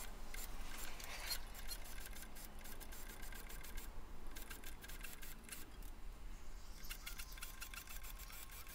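Workshop sounds of drilling and hand-tool work on an aluminium aircraft spar, played back about twenty times fast, so they become a rapid, irregular patter of clicks and ticks. A steady high tone comes in about seven seconds in.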